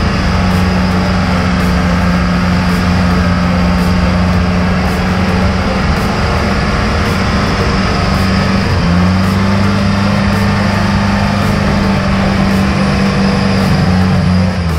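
Cummins 4BT four-cylinder diesel in a Jeep JK held at steady revs while its tyres spin against ice, trying to melt through and find grip. The revs step up slightly about nine seconds in and fall away at the very end.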